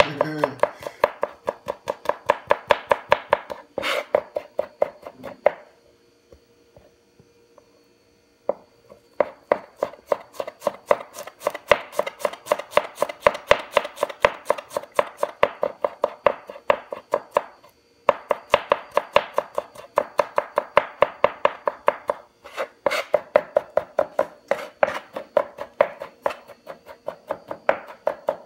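Cleaver rapidly chopping garlic on a cutting board, mincing it fine, with many quick knocks a second. The chopping stops for a couple of seconds about six seconds in, then resumes.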